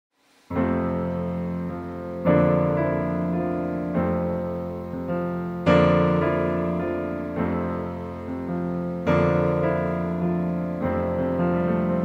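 Background music: slow solo piano chords, a new chord struck about every second and a half to two seconds, each ringing and fading. It starts about half a second in.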